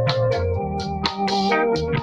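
Instrumental music: held organ-like keyboard notes over a stepping bass line, with a steady beat of sharp percussion hits.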